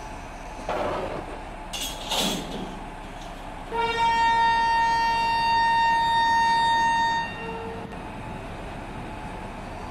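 Two short bursts of noise, then one long locomotive horn blast lasting about three and a half seconds, the loudest sound here.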